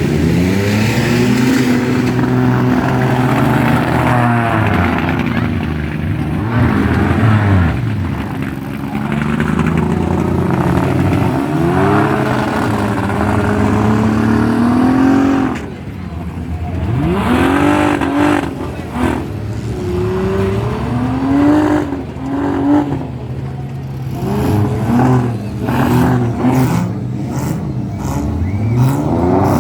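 Several car engines revving up and down in a demolition derby, with a run of sharp bangs in the second half as the cars crash into each other.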